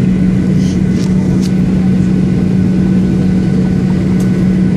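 Boeing 737-800's CFM56-7B turbofan engines at takeoff thrust during the takeoff roll, heard inside the cabin: a loud, steady roar with a steady low hum running through it, and a few faint clicks.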